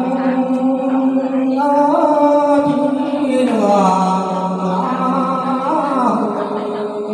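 A man singing a traditional Mường folk song unaccompanied into a microphone, in long drawn-out notes; the pitch slides down to a lower held note about halfway through.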